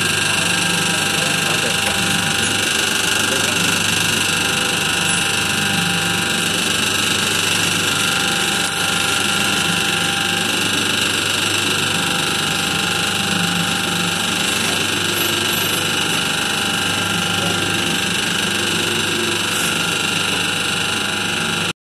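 Tapioca-flour dough mixer running steadily, its motor humming and the mixing shaft churning thick, wet dough in a stainless-steel trough.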